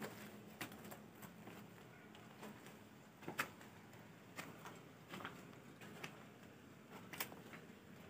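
Faint footsteps crunching over loose brick rubble: a few scattered soft clicks and crunches, roughly one every second or so, over quiet room tone.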